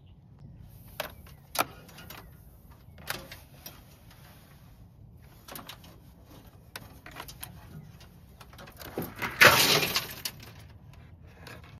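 Handling sounds of a wire being routed between golf cart batteries: scattered light clicks and knocks, with one louder burst of noise lasting under a second about nine and a half seconds in.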